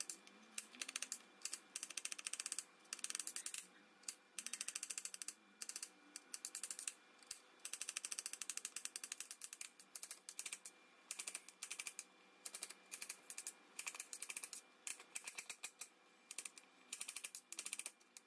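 Kitchen knife chopping onion and garlic on a ceramic plate: rapid runs of sharp taps as the blade strikes the plate, broken by short pauses.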